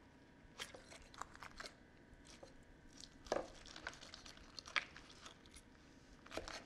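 Carving knife cutting a roast chicken's leg away from the body at the joint: faint, scattered clicks and crackles as the blade works through skin, meat and joint.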